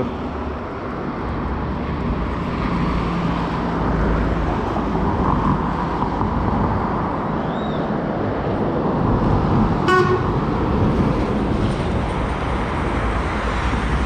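Steady road traffic noise with vehicles running past, and a short car horn toot about ten seconds in.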